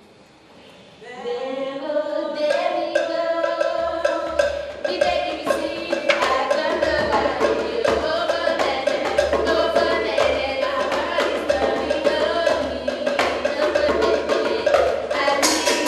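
Music with drumming starts about a second in: a melody over a busy, steady beat of drum strikes.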